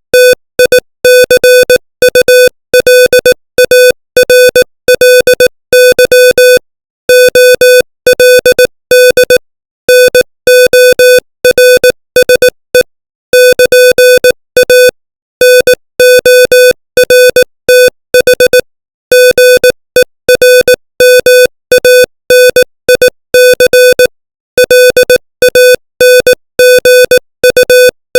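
Morse code at 18 words per minute, sent as a single steady beeping tone switched on and off in short dits and long dahs. Short gaps fall between letters and longer pauses between words.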